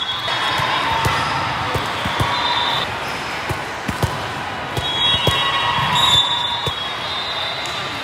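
Volleyball hall ambience: scattered thuds of volleyballs bouncing and being hit on the courts, over a busy hubbub of players' and spectators' voices and shouts in a large hall.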